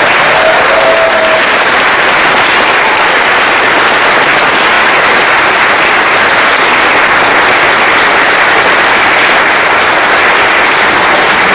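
Congregation of guests applauding steadily after the wedding kiss.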